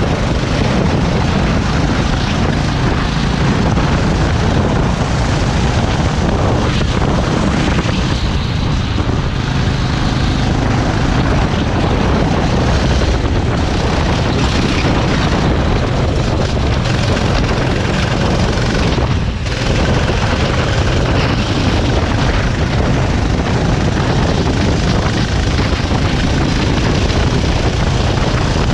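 Racing kart running at speed on a wet track: a loud, steady rumble of engine drone under dense road and wind noise, with no letup.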